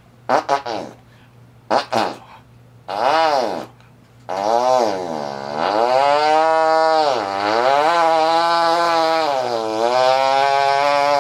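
A man's vocal imitation of a chainsaw. It starts with a few short sputtering bursts, then becomes a sustained buzzing note that rises and falls in pitch like the engine being revved.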